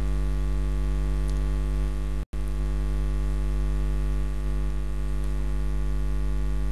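Steady electrical mains hum with many evenly spaced overtones, picked up by the recording. It cuts out completely for a split second about two seconds in.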